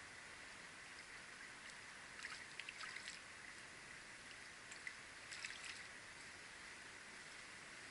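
Faint, steady rush of a shallow stream flowing over rocks, with a few soft splashes around two to three seconds in and again about five seconds in.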